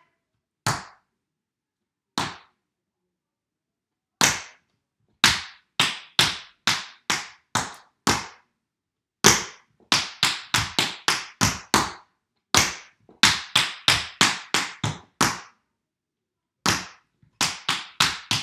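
Metal taps of tap shoes striking a wooden floor in tap-dance footwork of taps and jumps. Two single taps, then runs of quick, sharp taps in groups of several, with short pauses between the groups.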